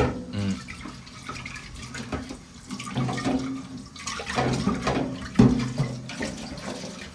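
Tap water running into a pot in a stainless steel kitchen sink while the pot is scrubbed out by hand, with a sharp knock about five and a half seconds in.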